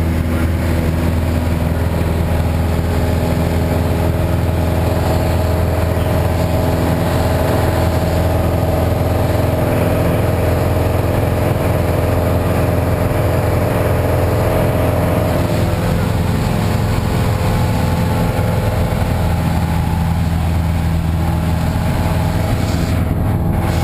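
Single-engine piston airplane's engine and propeller running steadily in flight, a constant drone heard from inside the cabin.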